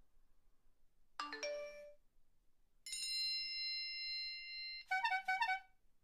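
A string of electronic chime and ringtone sound effects. About a second in there is a quick rising run of chime notes. Near the middle a long steady ringing tone is held for about two seconds. Near the end comes a quick ring of about four short pulses.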